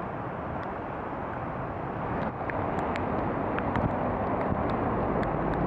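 Steady rushing of a river in flood, swollen by record heavy rain into a muddy torrent; it gets somewhat louder about two seconds in, with a few faint sharp ticks over it.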